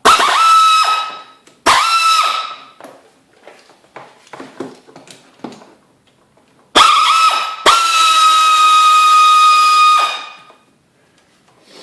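Small air ratchet spinning bolts off an ATV engine's top end. It runs in four bursts of a high, steady whine with air hiss: two short runs at the start, then a short run and a long one of about three seconds later on. Faint clicks of handling come between the bursts.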